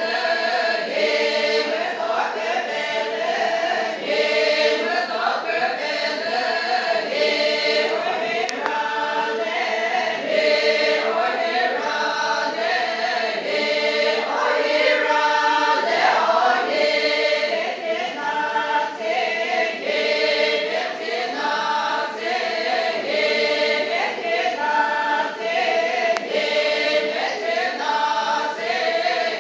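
A group of voices singing together unaccompanied, in a chant-like song of held notes that step up and down about once a second.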